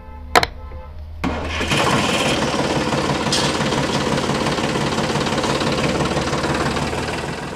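A click, then the motor of a small toy tractor starts and runs steadily as it drives off towing a loaded trolley, fading near the end.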